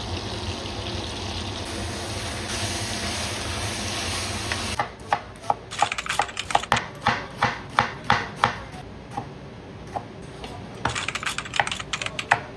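A kitchen knife chopping on a cutting board: a run of sharp, quick knocks at about three to four a second starting about five seconds in, a few single strokes, and another burst near the end. Before the chopping there is a steady rushing noise.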